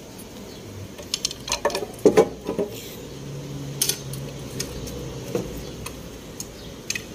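Scattered metallic clinks and knocks of hand tools and parts against an engine block and timing chain cover, with a cluster of louder knocks about two seconds in.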